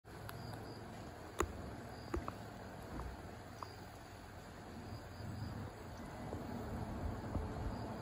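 Faint outdoor ambience: a steady low rumble and hiss, with a few sharp clicks in the first four seconds, the loudest about a second and a half in.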